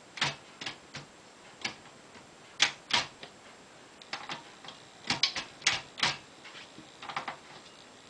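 1968 Commodore 2200 portable manual typewriter being worked by hand, its keys and tab mechanism giving irregular sharp clacks. There are about a dozen and a half of them, with a quick run of several clacks around five to six seconds in.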